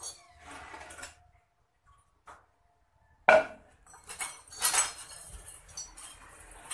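Short scrap metal tubes clinking and clattering as they are picked up and stacked on a concrete floor. About three seconds in, one sharp, loud knock as a length of plastic PVC pipe is stood on end on the floor.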